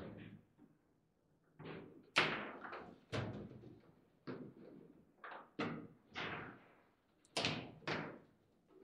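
Foosball table in fast play: the ball striking the plastic players and the table walls, and the rods being slammed and rattled, in about ten sharp, irregular knocks and clacks, sometimes two within half a second.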